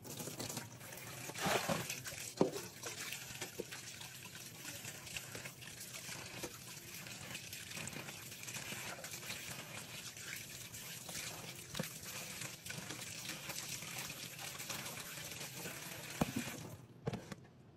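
Kitchen tap running into a stainless steel sink as raw chicken pieces are rinsed under the stream, with a few louder moments about two seconds in.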